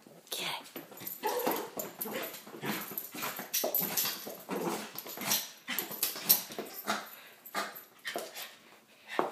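West Highland white terrier puppy making small whimpering, yipping noises while thrashing a toy. A busy run of quick slaps and knocks thins out near the end.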